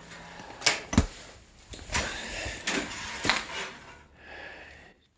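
A handful of sharp knocks and clatters with rustling between them, like hard objects being handled and set down; the heaviest is a low thud about a second in.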